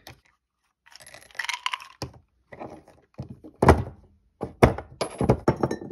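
Ceramic pestle pounding and crushing chalky pink Pepto-Bismol tablets in a ceramic mortar: a series of hard knocks, the loudest about three and a half to five seconds in, after a short gritty rustle about a second in.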